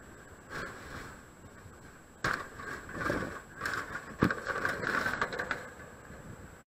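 Scraping and rattling of a wire crab trap being handled, picked up by a camera ziptied to the trap, with two sharp knocks about two and four seconds in. The noise cuts off suddenly near the end.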